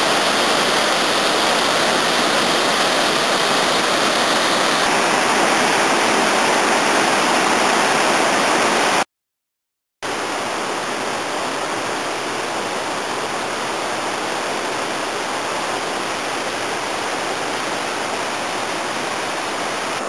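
Steady roar of rushing water from a waterfall and river rapids. It cuts out for about a second some nine seconds in, then comes back a little quieter.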